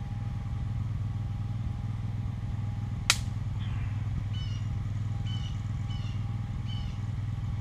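A steady low engine-like hum throughout, with a single sharp snap about three seconds in and short high chirps repeating about twice a second from about four seconds in.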